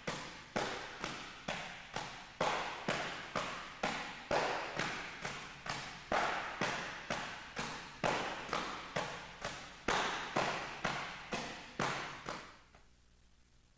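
Iron palm training bag struck by open-palm slaps from two people, a fast, even run of dull slaps about two and a half a second, stopping about a second before the end.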